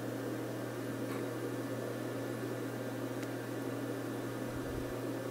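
Steady low electrical hum under a constant hiss, the background noise of the recording, with a couple of faint ticks.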